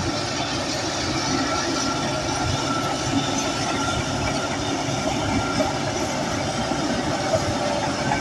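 Crawler bulldozer working steadily, its diesel engine running under load with a continuous clatter from the steel tracks.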